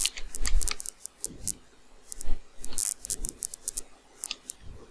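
Computer keyboard typing: irregular light key clicks with short pauses between them.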